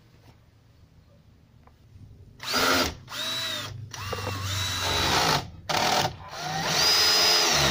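Makita power drill boring a hole through an amplifier's sheet-metal chassis, run in about five short trigger bursts starting about two and a half seconds in, its motor whine rising and falling with each squeeze.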